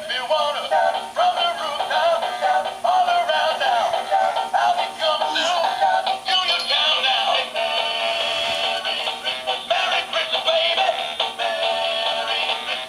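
Plush singing puppy toy playing its song through a small built-in speaker: a synthetic voice sings a melody over a backing tune, sounding thin with no bass.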